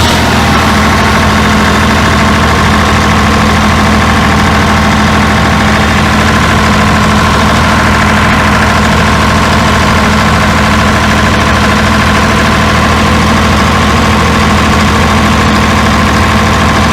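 Generator set engine running at a steady speed just after starting, settling about half a second in and then holding an even, unchanging note.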